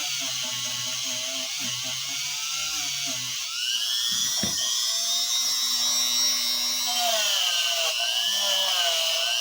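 Corded electric die grinder running at low speed on the jaws of a pair of lineman's pliers, a high whine whose pitch sags and climbs again about three and a half seconds in as the load changes.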